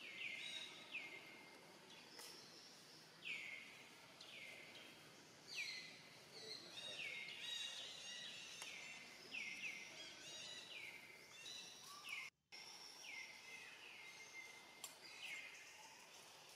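A bird calling over and over in the trees, short notes that each drop in pitch, against faint outdoor background. The sound cuts out for a moment about twelve seconds in.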